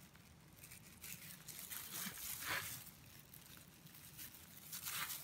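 Faint rustling and handling noises from a plastic-gloved hand setting almonds on milk-soaked pastry pieces, with a slightly louder brush about two and a half seconds in.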